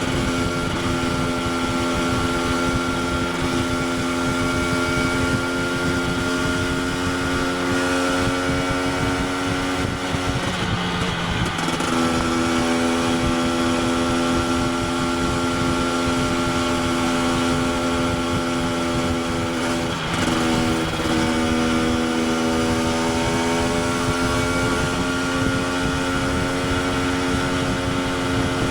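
KTM 250 EXC TPI single-cylinder two-stroke motorcycle engine holding a steady engine speed. The pitch dips briefly about ten seconds in and again about twenty seconds in, then settles back to a steady tone.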